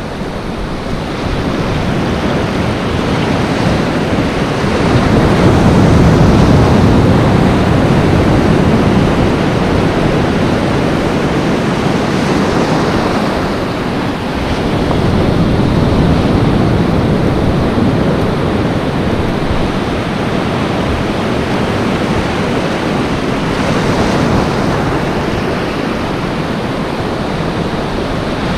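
Surf washing across a shallow reef flat, a continuous rushing of breaking water that swells louder about five seconds in and again just past halfway, with wind rumbling on the microphone.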